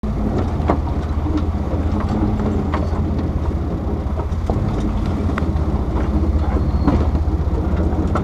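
Off-road utility vehicle crawling over a rough dirt trail: a steady low engine rumble, with body rattles and scattered short knocks as it jolts over the ruts.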